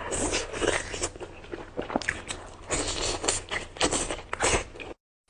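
Crisp crunching bites and chewing of food, a quick run of crunches with some scraping, stopping suddenly near the end.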